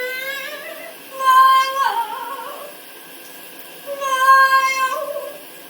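A pet parrot singing three drawn-out, wavering notes, the middle one the longest, with short gaps between them.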